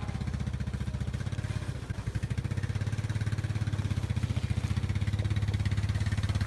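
Four-wheeler ATV engine running steadily, with an even, rapid pulsing beat.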